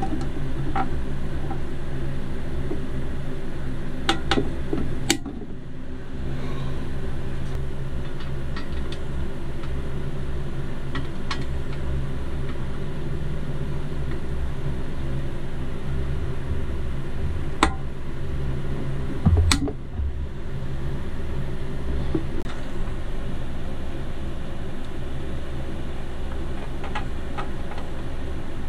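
Steady low mechanical hum, with a few sharp light clicks and taps as the plastic toy van body and its parts are handled.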